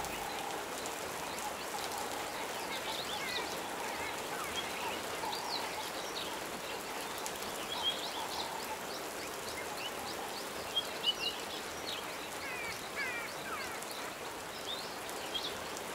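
Natural bush ambience: a steady soft hiss with many short, high bird chirps and whistles scattered throughout, and a few slightly louder calls near the middle.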